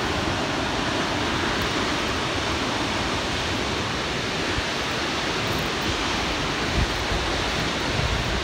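Steady rushing roar of a waterfall. A couple of faint low thumps of wind on the microphone come near the end.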